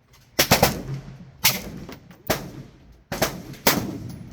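Gunshots, about six at irregular intervals, sharp cracks each followed by a brief echo.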